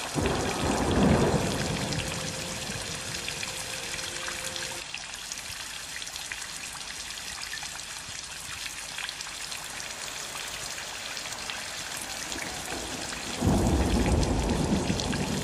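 Steady rain falling, a hiss of many drops with small ticks of single drops among it. Near the end it becomes louder and deeper.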